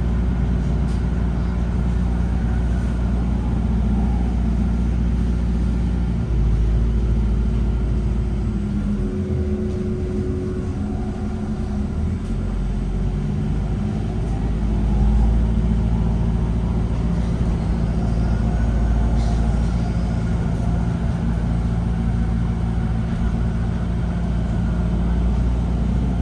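VDL Citea SLFA-180 Hybrid city bus running: a steady low hum with several steady tones over it, which shift briefly about nine seconds in before settling again.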